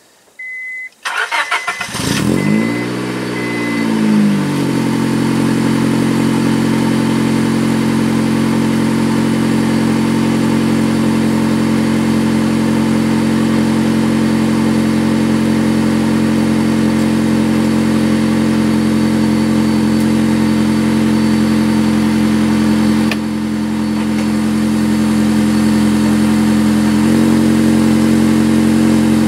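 2003 Honda Civic's 1.7-litre four-cylinder engine cold-starting: brief starter cranking about a second in, then the engine catches, flares up in revs and falls back to a steady cold fast idle. The idle note shifts slightly a few seconds before the end.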